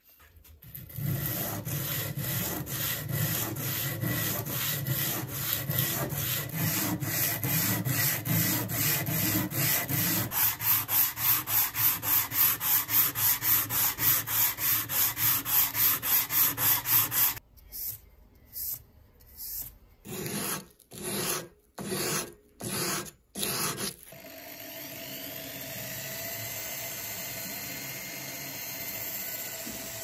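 Rapid back-and-forth hand sanding strokes, about three a second, breaking into a few separate strokes after about 17 seconds. From about 24 seconds a small motor runs steadily.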